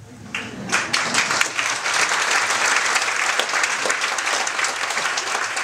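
Audience applauding. The clapping swells in under a second and then holds steady and loud.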